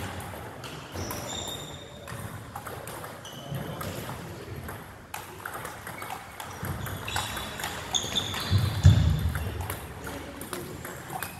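Table tennis balls clicking off paddles and table tops in play: irregular sharp clicks, some with a brief high ping. A low thump near the end is the loudest sound.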